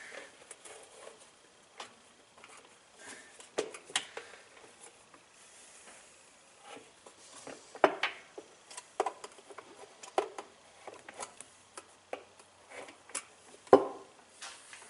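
Irregular light clicks and knocks of a small tool being jabbed and worked in under a washing machine's plastic washplate, which is seized onto the gearcase shaft. The louder knocks come about halfway through and again near the end.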